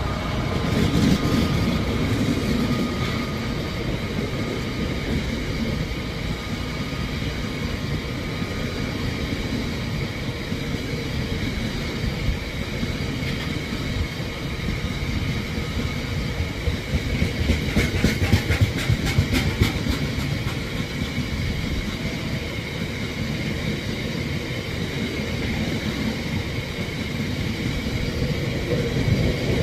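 Long rake of Drax biomass hopper wagons rolling past at speed: a steady rumble of wheels on rail, with the clickety-clack of wheels over rail joints growing thicker for a few seconds a little past the middle.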